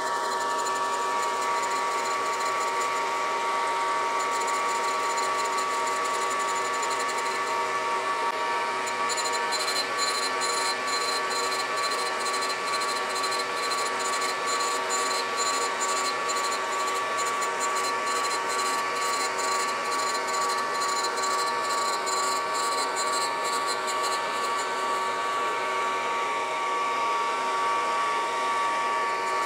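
Brown & Sharpe Micromaster surface grinder running, its wheel grinding the tops of metal spacers flat on the magnetic chuck: a steady whine of several tones over a grinding hiss. From about nine seconds in, a fine rapid crackle joins as the wheel cuts.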